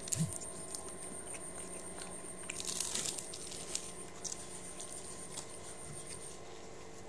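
Close-up eating sounds: biting into and chewing crisp fried food, with a short rustle of paper tissue being rubbed over a mouth about three seconds in.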